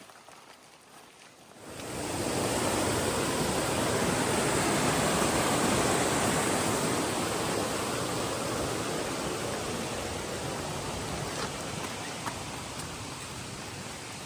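Steady rush of flowing water that starts suddenly about two seconds in and eases off slowly toward the end.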